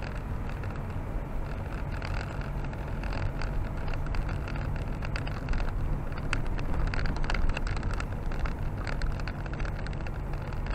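A car driving on a slushy, snow-covered road: steady low rumble from the engine and tyres, with scattered small clicks and ticks.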